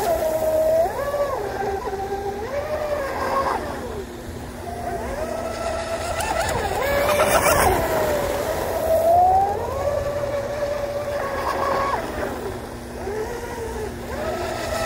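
Pro Boat UL-19 RC hydroplane running flat out on the Octura 642 propeller: a high electric-motor whine that rises and falls in pitch as the throttle comes off and on through the turns, loudest about halfway through as the boat passes nearer.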